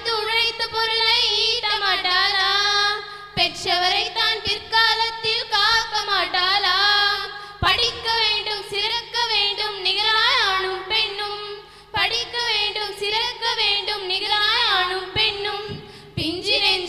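Three girls singing a Tamil song together into handheld microphones, in long phrases with short breaks between them.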